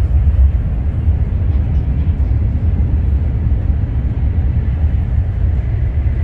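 Haramain high-speed electric train running, a steady, loud low rumble with no distinct knocks or tones.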